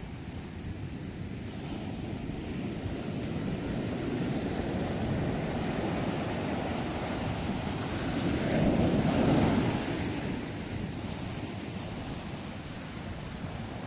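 Ocean waves on the shore: the surf swells, one wave breaks loudly about nine seconds in and then washes back. Wind buffets the microphone.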